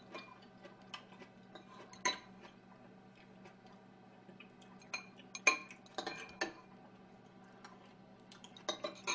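A metal spoon clinking against ceramic bowls and an earthenware pot: a few sharp, separate clinks, the loudest about five and a half seconds in.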